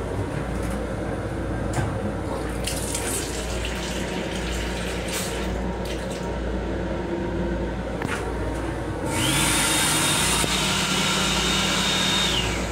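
Sensor faucet in a commuter railcar washroom running water into the sink. About nine seconds in, the built-in hand dryer blower spins up to a steady whoosh with a high whine, then winds down and cuts off about three seconds later. A low rumble from the moving train runs underneath.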